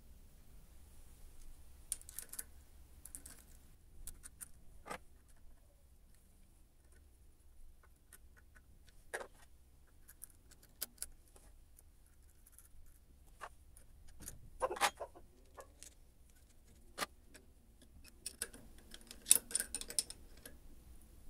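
Scattered metallic clicks and clinks of hands working a spanner and small metal parts on a small lathe's headstock and change gears. They come a few at a time with pauses between, busiest near the end.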